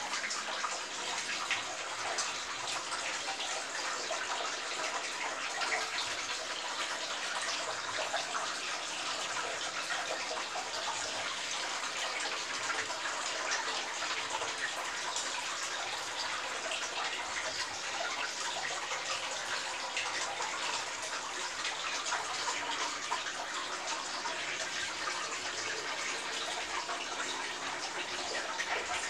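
Steady aquarium water noise: the tank's filter and aeration keep water trickling and bubbling without a break, a continuous hiss full of tiny crackles.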